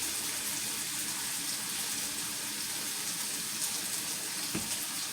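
Chicken pieces frying in a skillet with a steady sizzle, and one soft knock about four and a half seconds in.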